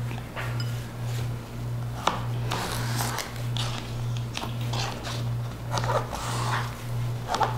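A knife slicing a zucchini on a plastic cutting board: scattered short cuts and taps on the board. Under them runs a low hum that pulses about twice a second.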